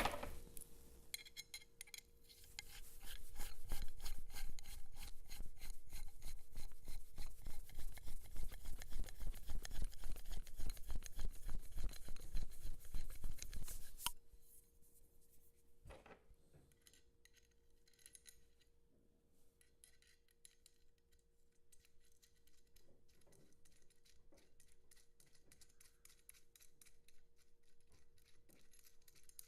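Threaded metal anchor parts being screwed by hand into the ends of a 3D printer brace rod: a fast, continuous rasping ticking of metal threads for about twelve seconds, then fainter scattered clicks and handling.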